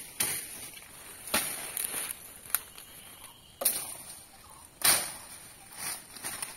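Footsteps crunching through dry bamboo leaf litter, one crackling step about every second.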